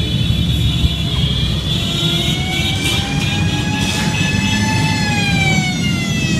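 A parade of motorcycles riding slowly past, engines running in a low steady rumble. A pitched whine rises over the first half and falls away near the end.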